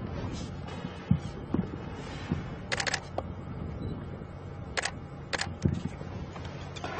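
Camera shutter clicking: a rapid burst of several shots about three seconds in, then two single shots about two seconds later, over a low steady hum.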